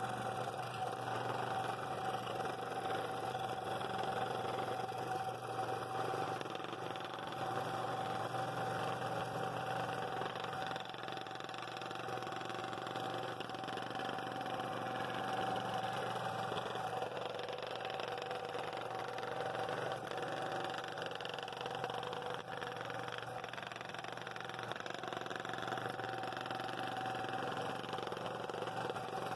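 Scroll saw running with a number 7 blade, cutting a circle out of a 3/4 inch mahogany bowl blank: a steady machine hum with a constant whine.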